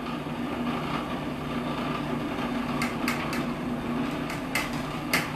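Food processor motor running steadily, blending sunflower seeds and olive oil into sunbutter, with a handful of sharp clicks in the second half.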